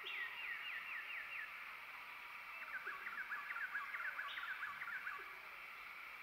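Forest ambience of small animal calls: a steady high hiss under two rapid runs of short, falling chirps, the first fading about a second and a half in and the second running from about two and a half to five seconds.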